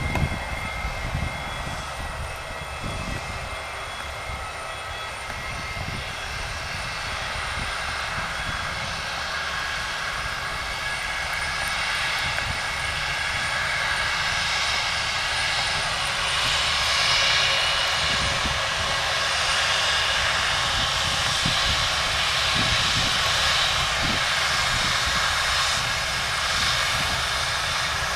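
Airbus A319 jet engines running at low power with a high whine, growing louder over the first half as the airliner moves closer and then holding steady. Irregular low wind rumble on the microphone underneath.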